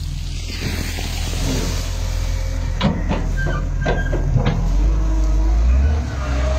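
Diesel engine of a front loader running under load as it pushes earth, a steady low rumble that grows louder about five seconds in, with a few brief knocks in the middle.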